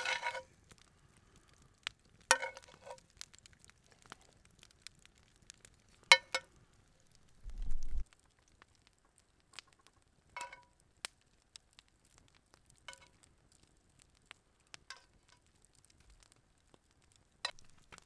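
Cooking utensil clinking against a frying pan as food is stirred, in single strikes every few seconds. There is a brief low thump about halfway through.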